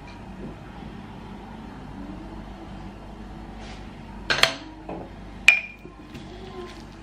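A few sharp clinks from a glass spice jar of curry powder as it is shaken and tapped over a dish. The two loudest come about four and a half and five and a half seconds in, the second with a brief ringing tone.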